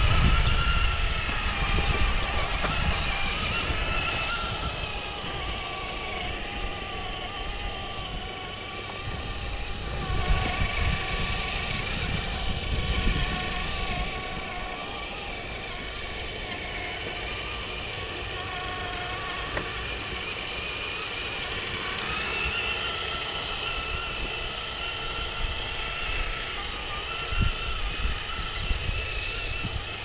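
Traxxas TRX-4 scale crawler running on Traxx Deep Terrain track units: the electric motor and drivetrain whine, the pitch rising and falling with the throttle, over a low rumble that is strongest in the first few seconds and again about ten to fourteen seconds in.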